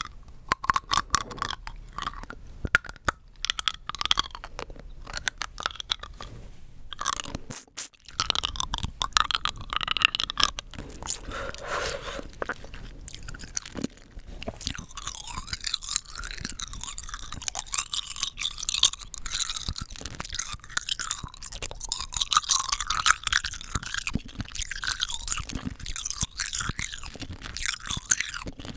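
Rock candy being bitten and chewed close to the microphone: a dense run of sharp crunches and crackles as the hard sugar crystals break, with a short pause just before the eight-second mark.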